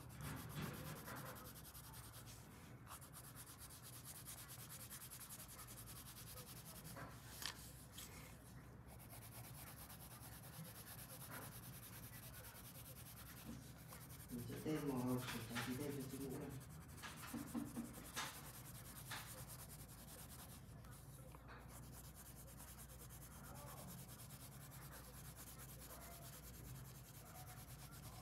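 Coloured pencil shading back and forth on paper, a soft, steady scratchy rubbing, with a brief louder sound about halfway through.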